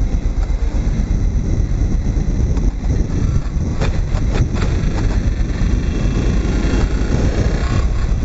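Wind buffeting the microphone with road and engine noise from a moving motorcycle: a loud, steady low rumble.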